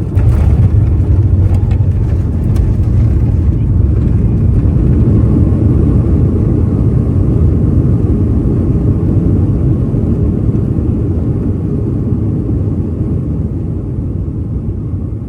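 Cabin sound of a Boeing 757-200 airliner on its landing roll: a sudden rise into a loud, deep rumble with a few knocks in the first seconds. The rumble holds for about ten seconds, then slowly eases as the aircraft slows.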